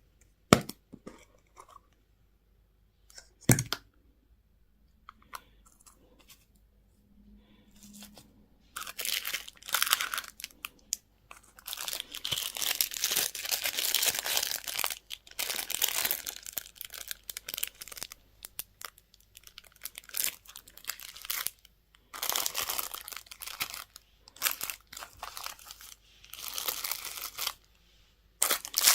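Plastic candy wrapping being torn open and crinkled by hand, in bursts with short pauses. A few sharp clicks and taps come first, before the crinkling starts about a third of the way in.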